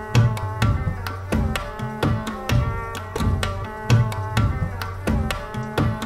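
Background music with a steady percussive beat: drum hits over pitched instrumental notes.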